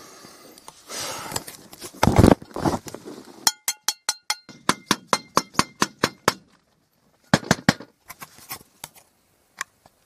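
Rustling and a heavy thump, then a fast run of sharp metallic bangs that ring, about four a second for nearly three seconds, and a short burst of three more near the end. It is banging to scare off an animal prowling around the tent.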